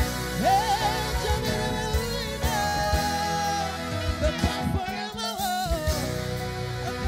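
Live gospel band: a singer sings a melody with wavering, gliding runs over a drum kit played with sticks, with cymbals.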